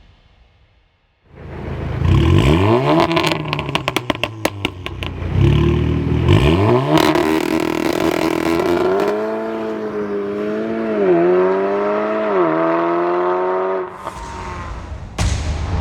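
Stage 2 tuned Audi S3 8V 2.0 turbo four-cylinder with an aftermarket downpipe and catback exhaust. It revs up twice, with a rapid run of exhaust crackles and pops as the revs fall. Then it runs under sustained throttle, its pitch climbing in stages with two brief dips, before cutting off suddenly.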